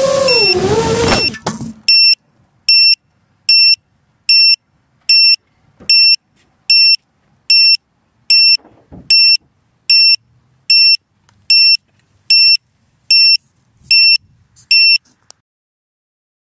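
Small FPV quadcopter's motors whining with a wavering pitch, then cutting off suddenly about a second in. After that the quad's onboard buzzer beeps loudly and steadily, about seventeen short high beeps a little over one per second, stopping shortly before the end.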